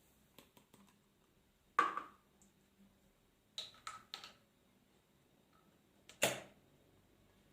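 MEC Sizemaster shotshell reloading press being worked for 12-gauge shells: sharp mechanical clacks, two loud ones about two and six seconds in with a quick run of three smaller clicks between them.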